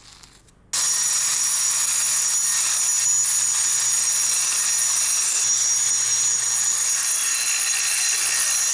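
Angle grinder with a cup wheel grinding down high spots on the top of a concrete foundation wall. It comes in abruptly under a second in and runs loud and steady, with a high whine over the grinding noise.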